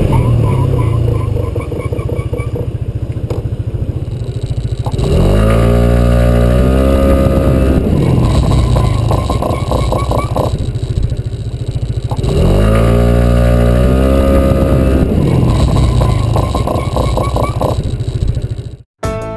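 A PGO Tigra 150 scooter's engine pulling away twice. Each time its pitch rises for about a second, then holds steady under the automatic transmission while the scooter gathers speed, then drops as the throttle eases. The sound cuts off abruptly near the end.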